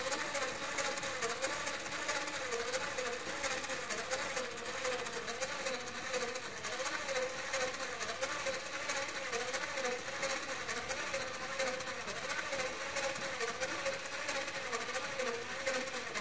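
Steady, fast mechanical whirring with a wavering hum, unbroken throughout.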